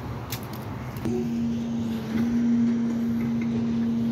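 Freightliner McNeilus recycling truck running down the street, its steady hum coming in about a second in and holding, over a low rumble.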